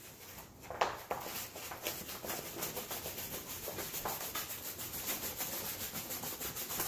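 A large plastic-covered diamond painting canvas being rolled by hand the opposite way to its curl, so that the glue side is not stressed: a run of short rubbing and scraping strokes, a few of them sharper about a second in and about four seconds in.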